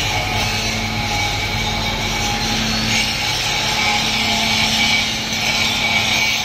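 Steady metalworking noise from power tools on a steel rotor: a continuous high hiss over a low hum.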